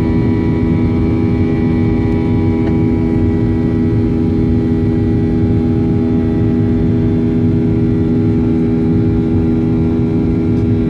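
Boeing 737-800's CFM56-7B turbofan engines heard from inside the cabin at climb power just after takeoff: a steady, loud rush of engine and air noise with several steady humming tones in it.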